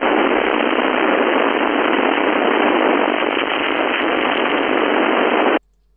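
FM radio receiver hissing with static on the 11-metre band: a steady rush of noise that switches on abruptly as the squelch opens and cuts off suddenly about five and a half seconds in.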